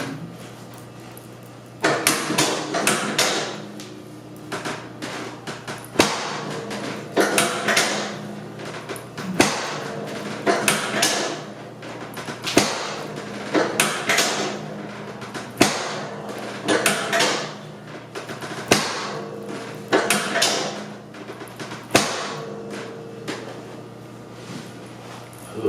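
A long series of sharp knocks, roughly one every second or two, starting about two seconds in, from repeated percussive strikes during a chiropractic treatment of the lower back and legs. Each knock is followed by a short rustle, over a steady low hum.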